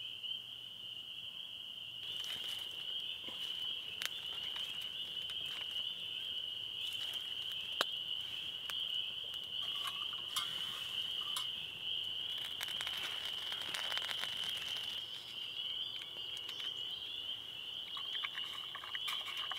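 A steady, high-pitched night chorus of calling frogs, with a small campfire crackling and popping from about two seconds in.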